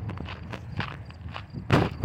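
A run of irregular sharp knocks or pops, a few each second, with a louder one near the end, over a steady low rumble.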